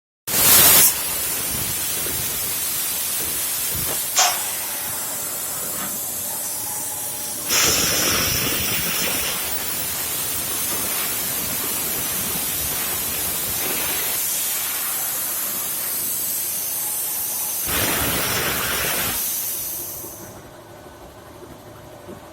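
CNC plasma cutter's torch cutting steel plate: a loud steady hiss of the plasma arc, starting abruptly just after the beginning, with a sharp click about 4 seconds in. The hiss dies away about 20 seconds in, leaving only a faint machine hum.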